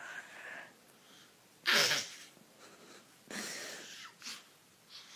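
A dog sneezing with its nose against a baby: short, sharp sneezes about a second and a half apart, the first the loudest, followed by a smaller one.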